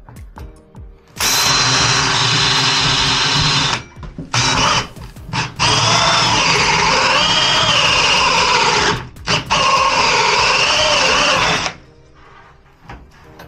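Power drill running in three bursts of a few seconds each, with short pauses between them, its pitch wavering as it works under load.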